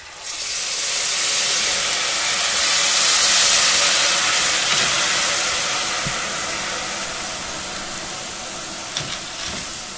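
Panela syrup poured into a saucepan of hot, oily toasted corn kernels, sizzling and hissing loudly the moment it hits. The sizzle starts suddenly and slowly dies down, with a few light knocks of a wooden spoon against the pan.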